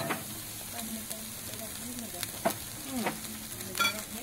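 Jalapeño bison burger patties sizzling on a hot gas grill's grate, with a few light clicks of a metal spatula and tongs.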